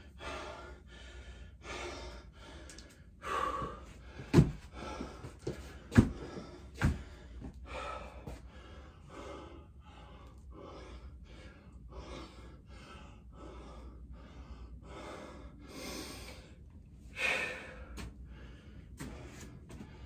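A man breathing hard and gasping, one rough breath about every second, winded from exertion. Three sharp knocks stand out in the first half.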